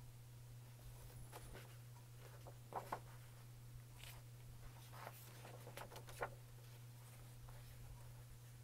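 Faint rustling and crinkling of thin magazine paper as the pages are unfolded and turned by hand: a few soft scattered paper sounds, the clearest about three seconds in, over a low steady hum.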